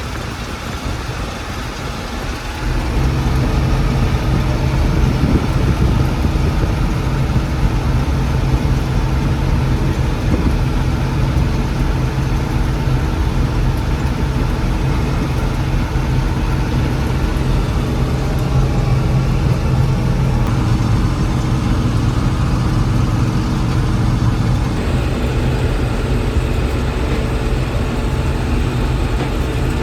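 John Deere 6600 combine's diesel engine running steadily. It steps up in loudness about two seconds in and then holds an even hum.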